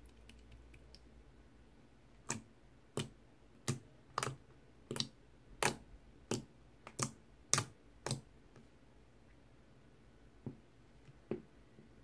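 Pink liquid slime in a plastic tub being poked and pressed with fingertips. It gives a run of about a dozen sharp clicks, roughly one every half second, then two fainter clicks near the end.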